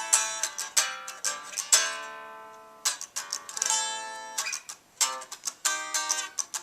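Unamplified 1962 Gibson Les Paul electric guitar played unplugged: picked notes and chords, two chords left to ring out and fade, then short picked notes near the end.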